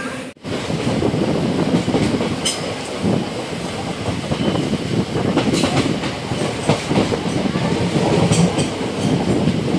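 Passenger train running on the rails: a dense rumble with the clickety-clack of wheels over rail joints and a few sharp clicks.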